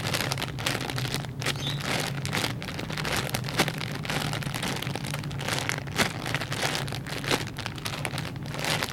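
Plastic crinkling and crackling in a dense run of small clicks as squishy toys are handled, over a steady low hum.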